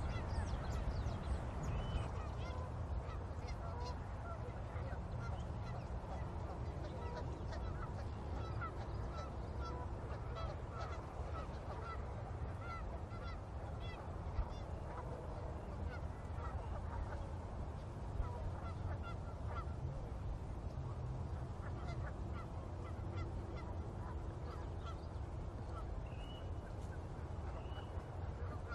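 A flock of geese honking: many short honks overlapping and repeating throughout, over a steady low rumble.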